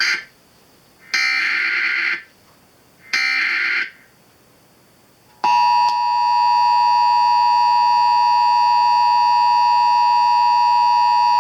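Emergency Alert System alert opening: the end of one burst and then two more roughly one-second bursts of raspy digital SAME header data, about a second apart. About five and a half seconds in, the steady two-tone EAS attention signal starts and holds, announcing a severe thunderstorm warning.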